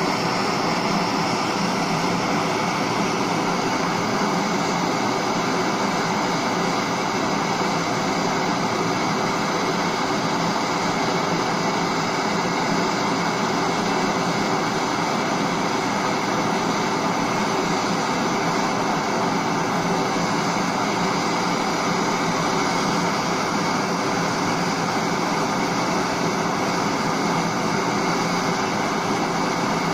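Gas blowtorch flame roaring steadily as it heats the cylinder of a seized Briggs & Stratton engine, with penetrating oil burning in the bore to free the stuck piston and valves.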